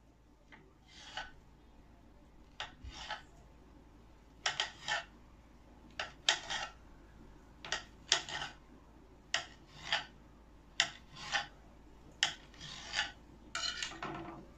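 Kitchen knife slicing through a rolled dough log and meeting the cutting board, about nine cuts spaced roughly a second and a half apart. Each cut is a short sharp stroke, often doubled, as the blade scrapes down onto the board.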